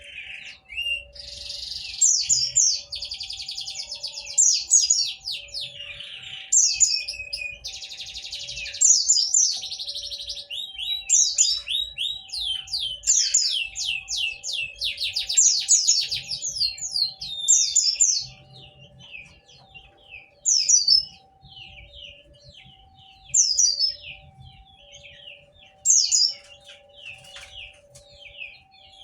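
White-eye (pleci) singing: rapid, dense twittering chirps and trills, thinning about 18 seconds in to single loud chirps every two to three seconds. This is song of the kind used as a lure to get other pleci to answer.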